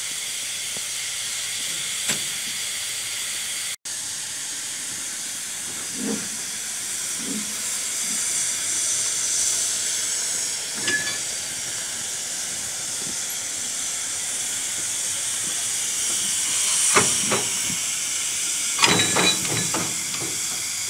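Narrow-gauge steam locomotive standing and venting steam in a steady, high hiss. A few sharp knocks come near the end.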